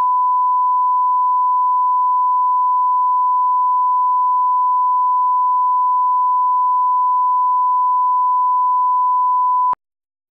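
Steady 1 kHz line-up tone that runs with the colour bars on a broadcast tape leader, the reference signal for setting audio levels. It is one unwavering pure beep that cuts off abruptly near the end.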